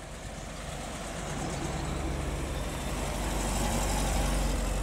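Classic car engines running at low speed, growing louder as an MGB roadster's four-cylinder engine passes close by about four seconds in.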